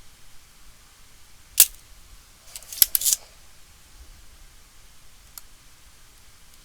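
Small hand tools clicking at a repair bench: one sharp snap, then a quick cluster of three or four clicks about a second later, and a faint tick near the end.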